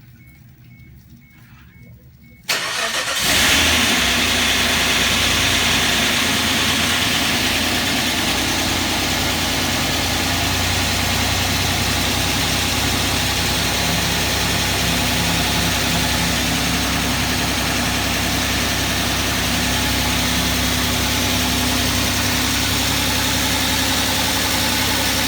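Freshly rebuilt Suzuki H25A 2.5-litre V6 engine starting for the first time: it catches suddenly about two and a half seconds in, then runs steadily at idle. There is a slight rasping clatter from hydraulic lifters that are still empty and not yet primed with oil.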